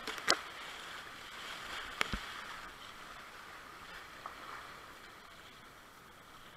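Whitewater rushing around a kayak running a river rapid, with a few sharp knocks, the loudest about a third of a second in and two more around two seconds in. The rush eases off over the last couple of seconds as the boat reaches calmer water.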